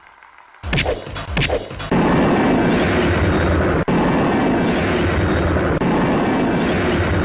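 Film sound effects for a brick wall being smashed: a few sharp hits, then from about two seconds in a loud, continuous, rumbling crash.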